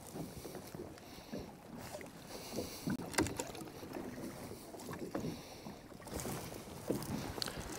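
Water slapping and splashing at the side of a small boat, with scattered light knocks and a wind hiss that comes and goes.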